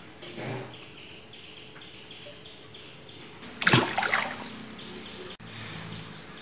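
Water splashing once in a cement fish tank about three and a half seconds in, over a steady high-pitched insect drone.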